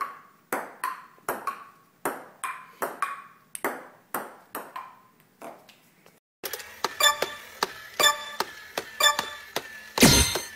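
Ping-pong ball bouncing and being struck, sharp ringing clicks two or three a second. Then, after a cut about six seconds in, a battery-powered crawling toy soldier clicks along steadily, with a loud burst near the end.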